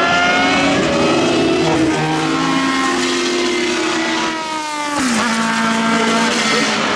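Historic Formula 1 racing car engines at high revs, one car pulling away out of a corner as another approaches, the engine notes climbing in pitch. About four and a half seconds in one engine sweeps quickly upward, then drops sharply just before five seconds and settles into a steady note.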